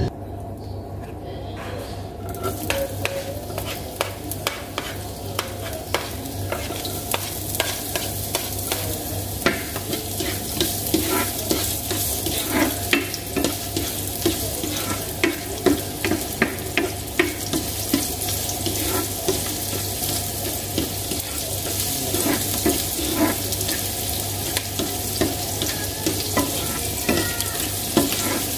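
Chopped onion sizzling in hot oil in a nonstick frying pan, starting about two seconds in as it goes into the pan. A spatula stirs it, with frequent light clicks and scrapes against the pan.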